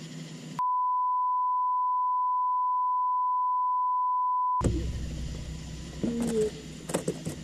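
A censor bleep: one loud, steady, high beep lasting about four seconds, starting just under a second in, with all other sound cut out beneath it, masking profanity. Before and after it, the low background hiss of the boat on the water.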